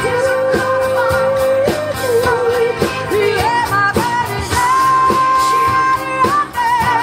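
Live band music: a singer holds long notes, one low early on and a higher wavering one in the second half, over a steady drum beat.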